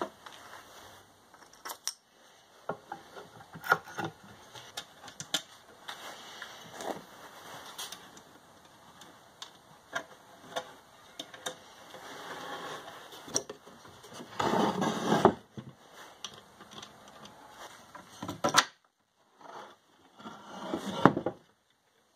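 Workbench assembly of a wooden carriage: scattered clicks and knocks of metal bolts, washers and wooden parts being handled and fitted together. A louder stretch of scraping and rubbing comes a little past halfway.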